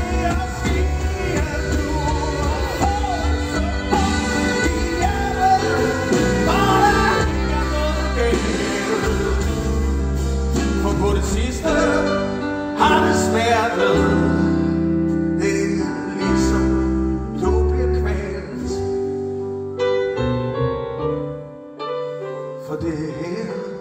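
Live band music with a male singer: sung lines over the band for the first half, then long held chords, and the level drops near the end to a few softer keyboard notes.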